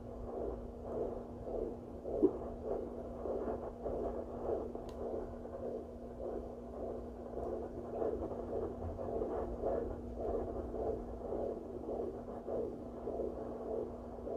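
Handheld fetal Doppler's speaker giving a faint, rhythmic whooshing pulse of blood flow as the probe searches the belly, over a steady hum.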